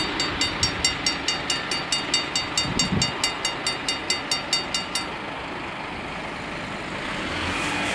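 Warning bells of a Dutch automatic half-barrier level crossing ringing rapidly, about four strokes a second, while the barriers rise after the train has gone. The bells stop about five seconds in, leaving steady outdoor noise and a low rumble that builds near the end.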